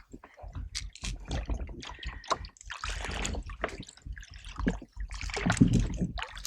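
Water splashing and trickling beside a canoe in irregular bursts of splashes and drips, stirred up by a hooked bass fighting at the surface.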